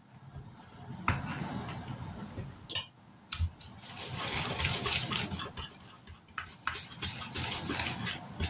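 Wooden spoon stirring cornbread batter in a plastic mixing bowl: a quick run of scrapes and taps against the bowl, busier from about halfway through.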